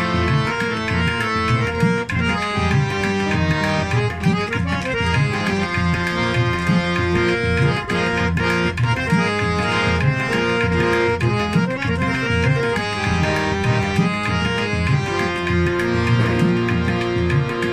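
Instrumental interlude of the song's backing music: a held melody over a steady hand-drum beat.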